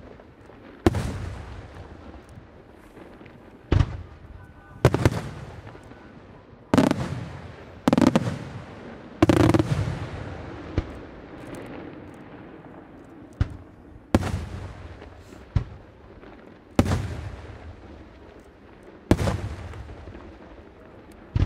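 Aerial firework shells bursting, a loud bang every second or two, each followed by a rolling echo that dies away.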